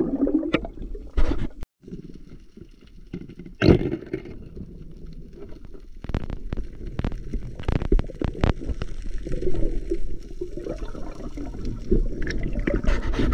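Water sloshing and gurgling heard through an underwater camera: a muffled low rumble broken by many short clicks and knocks. The sound drops out briefly about two seconds in, and a louder burst follows a couple of seconds later.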